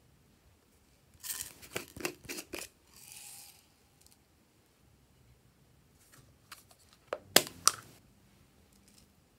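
Small plastic containers handled over trays of slime: foam beads tapped out of a plastic cup with a rattling patter, then a hard plastic case snapped open with two sharp clicks near the end.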